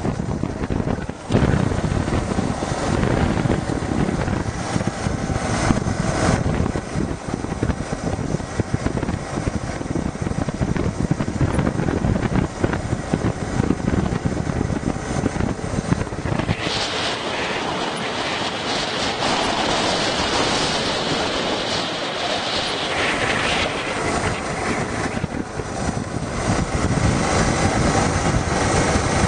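A vehicle driving along a country road: engine and road rumble with wind buffeting the microphone. About halfway through, the low rumble drops away and a higher hiss takes over for several seconds, then the rumble comes back.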